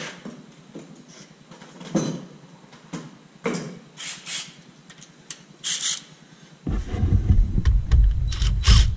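Scattered clicks and knocks from handling parts in a truck's engine bay. About two-thirds through, a loud low rumble comes in, then a ratchet wrench on a long socket extension starts clicking as it turns a nut on the TIPM fuse box.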